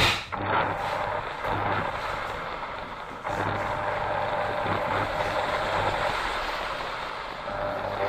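Radio-control toy car (New Bright Mercedes-Benz SLR McLaren) driving on a wooden floor: its electric drive motor and gears whirring, with tyre rumble, steady and close. It steps up in level a little over three seconds in.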